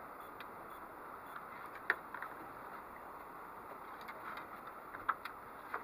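Steady hiss of wind and water on an open boat, with a few short clicks and taps scattered through it, the sharpest about two seconds in.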